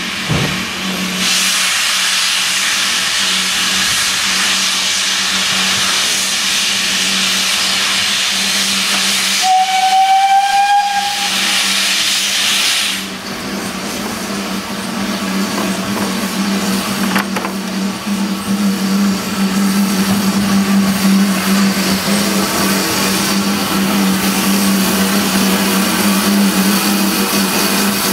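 Steam locomotive letting off a loud hiss of steam as it moves in. A single short whistle sounds about ten seconds in, rising slightly in pitch. The hiss stops suddenly soon after, leaving softer steam noise over a steady low hum as the engine comes alongside.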